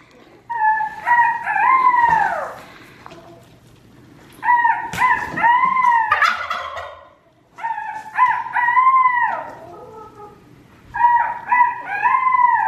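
A rooster crowing four times, about every three seconds; each crow is a string of arching notes that ends in a falling glide.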